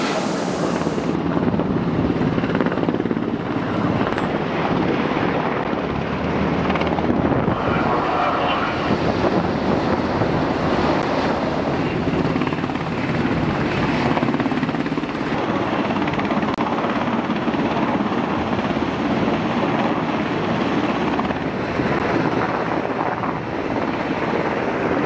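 Helicopter flying, with steady rotor and turbine noise.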